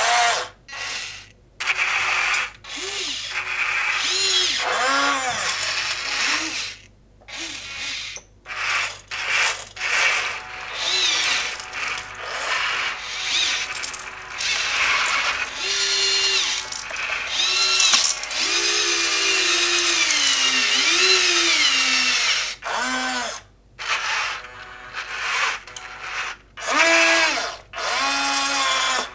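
Electric drive and hydraulic-pump motors of a 1:14 RC wheel loader, with their gearboxes, whining in a string of short runs broken by brief pauses. The whine glides up and down in pitch with the throttle as the loader drives and works its bucket.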